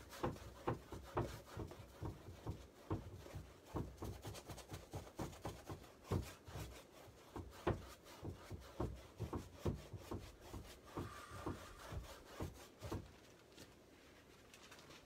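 Paint being rubbed and scrubbed onto a stretched canvas by hand, in quick irregular strokes, each with a soft knock or thump of the canvas. The strokes stop about two seconds before the end.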